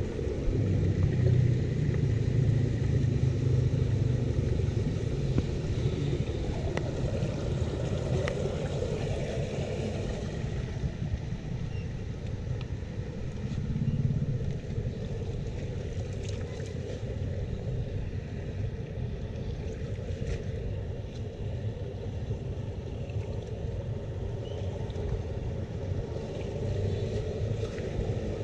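Muddy rainwater gushing out of a culvert drain and running along a ditch: a steady, low rushing rumble, somewhat louder in the first ten seconds, with a brief swell about halfway through.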